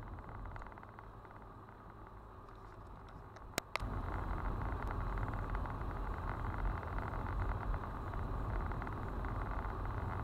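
Car cabin road noise picked up by a dashcam: a steady rumble of tyres and engine on a rough, patched road. Two sharp knocks come about three and a half seconds in, and after them the rumble is much louder.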